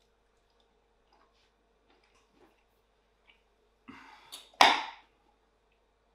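Faint clicks of cutlery and chewing, then about four and a half seconds in a sudden loud swish that dies away within half a second.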